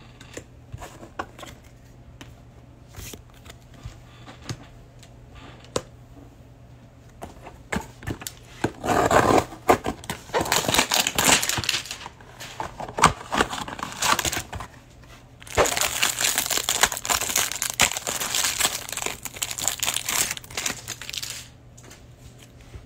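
Clear plastic wrapper around a stack of trading cards from a hanger box crinkling and tearing as it is pulled open, in two long spells from about nine seconds in with a short break between. Before that, a few soft ticks of cards and box being handled.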